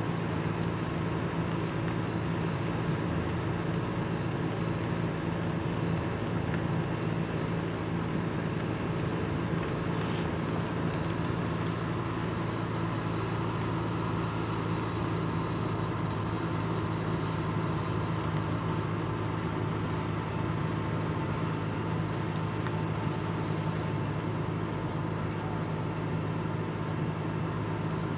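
Car engine and road noise heard from inside a moving car: a steady low hum that does not change.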